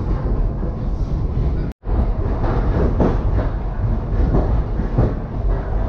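Passenger train running on the Hanoi–Saigon line: a steady low rumble of wheels on rail with a few soft knocks. The sound drops out for a split second a little under two seconds in.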